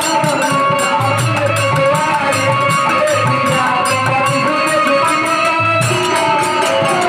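Instrumental folk music from a live stage band: held melodic notes with sliding ornaments over a steady drum beat and fast jingling percussion.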